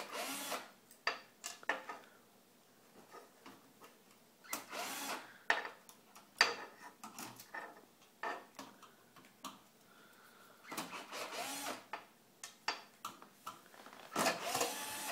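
Cordless screwdriver driving in the screws of a replacement LCD TV motherboard in about four short runs: near the start, about five seconds in, about eleven seconds in and near the end. Sharp clicks and rattles of the parts being handled come between the runs.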